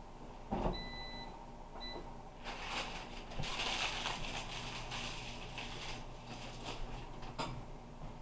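Air fryer beeping, one longer beep then a short one, as it is set, then its fan starting and running with a steady hiss and a low hum.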